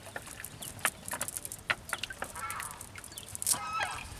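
Farm birds calling, two short honking calls in the second half, among a scatter of sharp taps and clicks.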